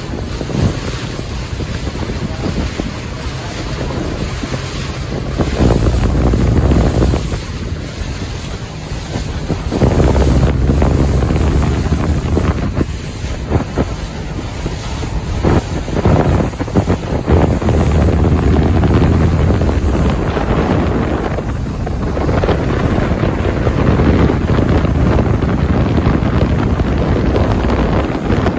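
Wind buffeting the microphone in gusts of low rumble over the rush of water past a boat underway.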